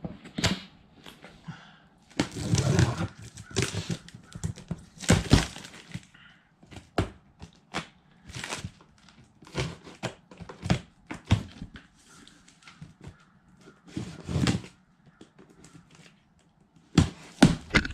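Handling noises from unpacking a box of coilover parts: irregular thunks, knocks and rustling of packaging and metal parts being moved.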